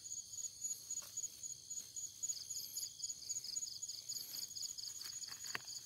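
Night insects, such as crickets, chirping in a steady rapid pulsing trill, with a fainter continuous high buzz behind it. A couple of faint rustles of seedling leaves being handled are also heard.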